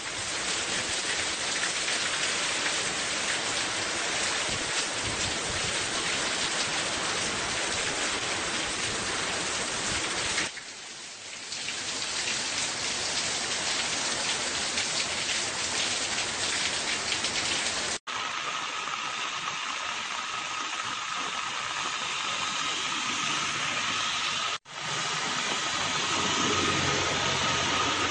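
Heavy rain pouring steadily, a dense even hiss. It dips briefly about ten seconds in and cuts out sharply twice later on, after which it sounds thinner, with a faint steady high tone behind it.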